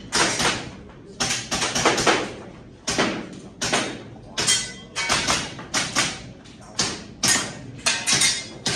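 Rapid string of about twenty shots from an Action Air (airsoft) rifle during a match stage, each a sharp crack, some fired in quick pairs or triplets, a few with a brief metallic ring.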